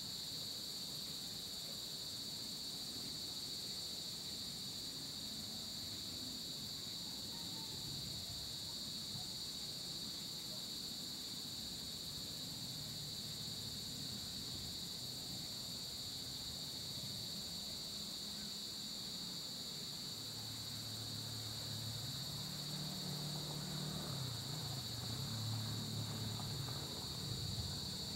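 A steady, high-pitched chorus of insects trilling without a break. From about twenty seconds in, a low hum rises faintly beneath it.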